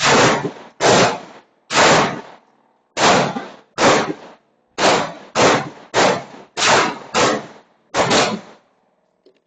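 About a dozen pistol shots fired at steel targets in quick, uneven succession, roughly half a second to a second apart, each a sharp crack with a short fading tail. The string stops about a second before the end.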